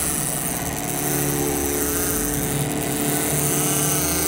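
Outboard motor running steadily, a little louder from about a second in.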